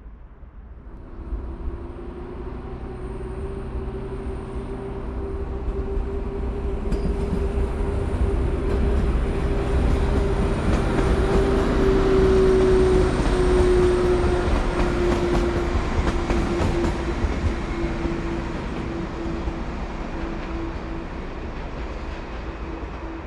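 SŽ Class 610 Stadler FLIRT diesel multiple unit running along the tracks and moving away. A steady engine hum with rail noise builds to its loudest about halfway through, then drops slightly in pitch and fades as the train recedes.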